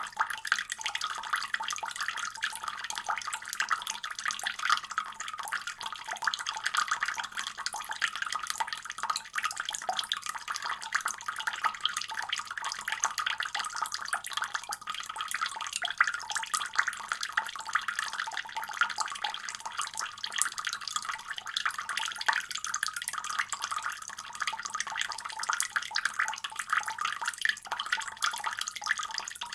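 Water running steadily from a faucet, a continuous splashing stream with a fine spattering texture.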